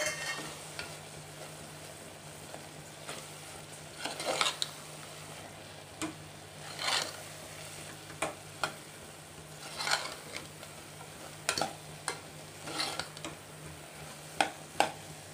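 Metal ladle stirring a thick spice masala in an aluminium pressure cooker, with irregular scrapes and knocks against the pot every second or so over a light sizzle.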